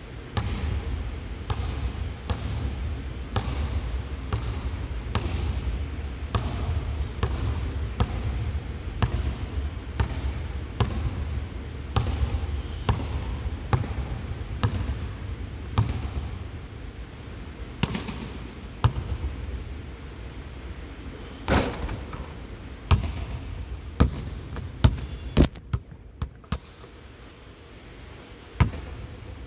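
Basketball being dribbled on a hardwood court, one bounce a little under every second, over a steady low hum. In the later part a few louder, sharper bangs stand out from the dribbling.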